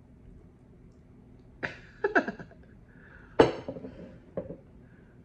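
A woman's short vocal bursts, four in about three seconds, each starting sharply and falling away, with a faint steady room hum beneath.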